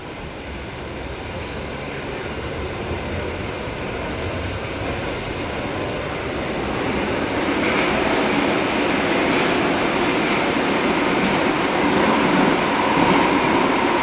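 Bucharest Metro train, an Astra IVA car heard from inside, pulling out of a station and accelerating into the tunnel. The rolling and running noise grows steadily louder, and a whine comes in during the second half.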